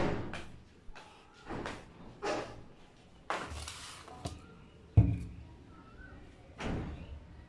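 Several separate knocks and thuds of things being handled and carried on a tiled floor in rubber flip-flops, then a sharp thump about five seconds in, the loudest, as a plastic cola bottle and a cardboard food box are set down on a wooden table.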